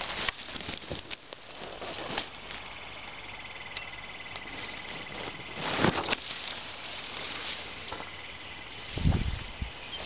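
Leaves and twigs of a bush rustling and scraping against a handheld camera as it is pushed in and drawn back out, with a louder crackle about six seconds in and a low handling bump about nine seconds in. A faint, steady high trill sits in the background for a few seconds in the middle.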